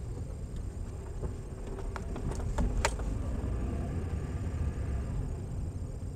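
A car driving slowly over a rough village road, heard from inside the cabin: a steady low rumble of engine and tyres, with a few sharp clicks or knocks about two to three seconds in.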